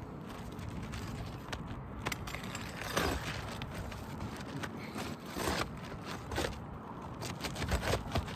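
Scraping and knocking as roofing nails are pried up and an architectural shingle is worked loose, with a few sharper scrapes about three, five and a half and six and a half seconds in.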